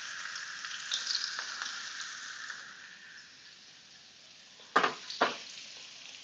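Chopped onions sizzling in hot oil in a frying pan, the sizzle dying down over the first few seconds. Two sharp knocks about half a second apart near the end.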